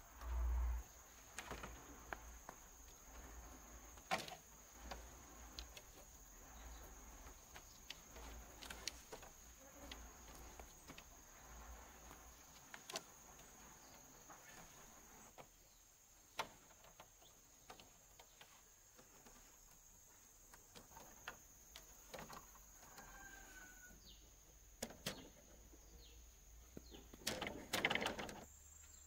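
Insects trilling steadily at a high pitch, with scattered light knocks and clicks of bamboo poles being handled. A low thump comes about half a second in, and near the end a louder clatter and rustle of bamboo lasts a second or so.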